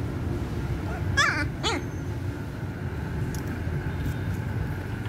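A puppy whimpers twice in quick succession about a second in, two short high cries that rise and fall, over a steady low background rumble.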